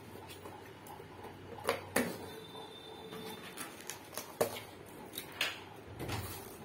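Cardboard packaging being handled: several sharp taps and knocks of the box and its flaps, with light rustling as a fabric pouch is lifted out.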